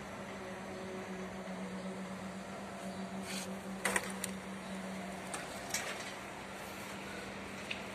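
Construction-site ambience: a steady low machinery hum that weakens about five and a half seconds in, with a few short sharp knocks, the loudest about four seconds in.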